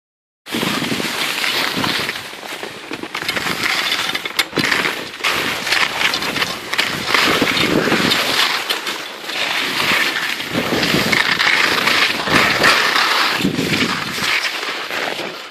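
Skis sliding and scraping over snow: a continuous crackling hiss that rises and dips in loudness several times.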